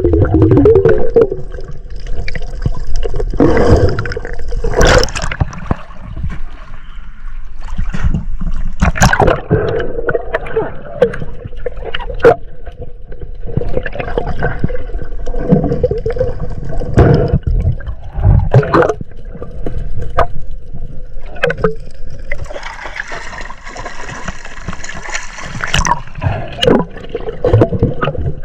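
Water gurgling and sloshing, broken by irregular knocks and splashes.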